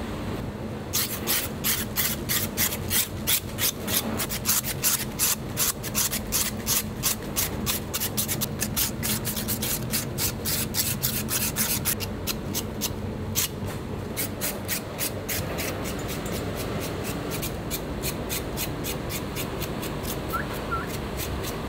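Fast, even scraping strokes, about three a second, of a blade or scraper rasping over the charred crackling of roasted pork belly. The strokes fade and thin out in the second half.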